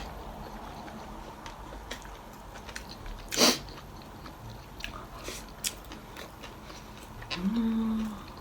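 Close-up chewing and biting into sushi rolls: soft wet mouth clicks, with one loud bite about three and a half seconds in. A short hummed "mm" comes near the end.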